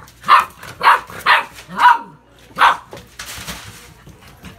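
A dog barking five sharp times in quick succession, followed by a brief rustle.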